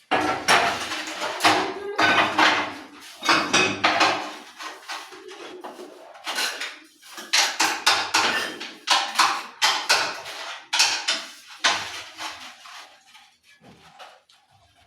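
Metal trowel scraping and clinking as mortar is scooped and worked for laying wall tiles: a run of irregular rasping strokes that thin out and fade near the end.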